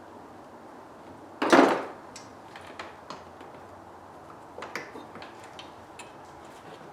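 A loud clunk about one and a half seconds in, then a scatter of light clicks and taps, like parts and tools being handled during the work.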